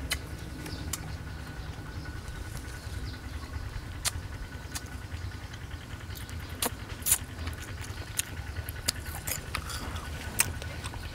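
Mouth sounds of a man chewing star gooseberries: scattered crisp clicks and smacks, roughly one a second at uneven intervals, over a steady low rumble.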